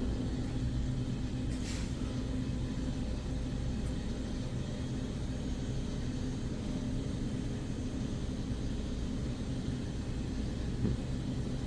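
Steady low machine hum of shop equipment such as coolers or ventilation, with a brief rustle a little under two seconds in.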